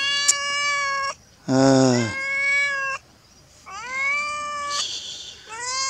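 Siamese cat meowing over and over: a string of long, drawn-out meows with short pauses between them.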